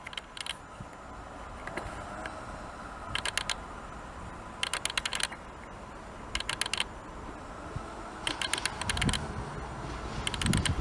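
Clusters of sharp clicks every one and a half to two seconds as the wheels of a Class 158 diesel multiple unit run over rail joints and pointwork. A low diesel rumble swells near the end as the unit draws closer.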